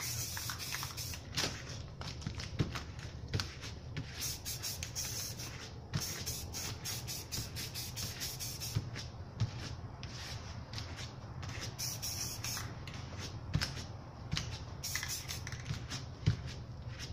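Aerosol spray paint cans spraying in many short bursts of hiss, some about a second long, with a steady low hum underneath.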